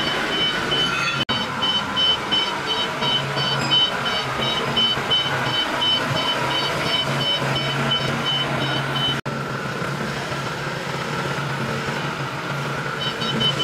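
Lonking forklift running with a steady low engine hum while its warning alarm beeps at one high pitch in an even, repeating pattern. The beeping drops out about nine seconds in and starts again near the end, the engine continuing throughout.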